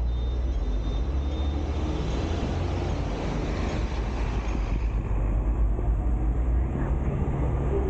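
Hong Kong double-decker electric tram running along street rails, heard from on board: a steady low rumble of the wheels and running gear.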